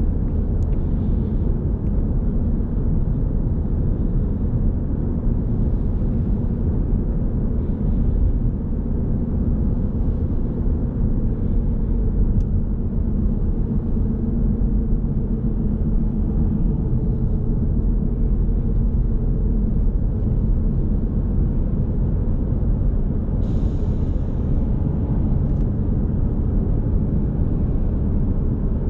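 2017 Ford Mustang EcoBoost's turbocharged 2.3-litre four-cylinder engine running at a steady cruise of about 40 mph, mixed with road and tyre noise, heard from inside the cabin. It is a steady low rumble with no revving.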